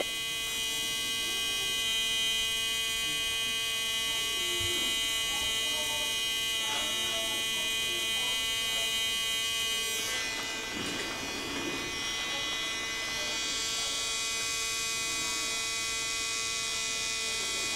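Cosmetic tattoo (permanent-makeup) pen machine buzzing steadily while working pigment into an eyebrow; its tone dips and shifts briefly about ten seconds in.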